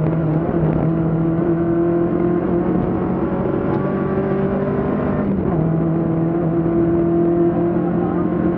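A BMW 2002 Ti rally car's four-cylinder engine pulling at a steady high speed, its note holding even. About five seconds in it briefly eases off, then pulls again.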